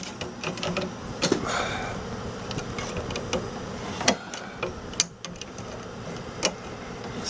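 Metal hand tools clicking and clinking, with a few sharp knocks, as a wrench is worked on the water-line fitting at the back of a refrigerator.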